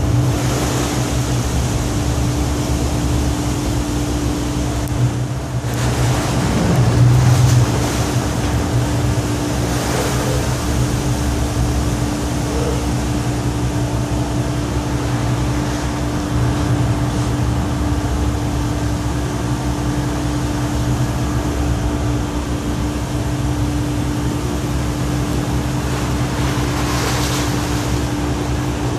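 Steady machinery drone of an offshore oil platform: a constant low hum with one unchanging tone, over sea water washing around the platform's lower deck and some wind on the microphone. The low rumble swells briefly about seven seconds in.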